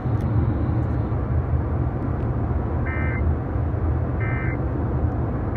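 Emergency Alert System end-of-message data bursts: two short, shrill digital warbles about a second and a half apart, with a third beginning right at the end, over a steady low rumble.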